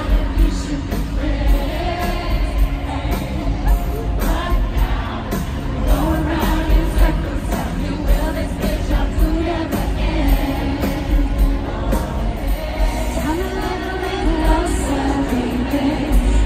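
Live pop concert music: female lead vocals sung over a loud, bass-heavy backing track, amplified through a stadium sound system.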